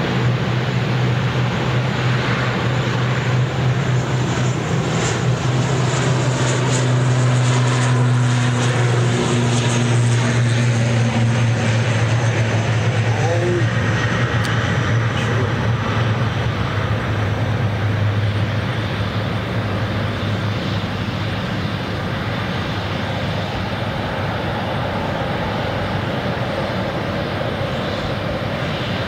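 ATR 72 twin-turboprop at takeoff power on its takeoff roll and climb-out, a steady low propeller drone over engine roar. It is loudest over the middle of the run and eases off as the aircraft climbs away.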